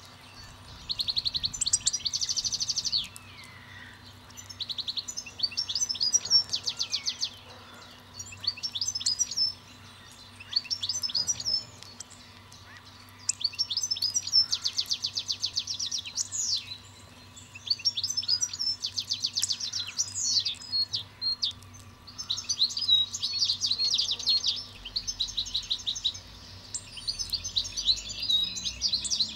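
A songbird singing a run of rapid, high trilled phrases, each a second or two long, with short pauses between them. A faint steady hum lies underneath.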